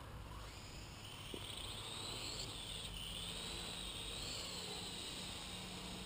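Parrot AR.Drone 2.0 quadcopter's electric motors and propellers spinning up for takeoff: a high whine that starts about half a second in and rises in pitch, dips briefly about halfway through, then holds steady with small wavers as the drone flies.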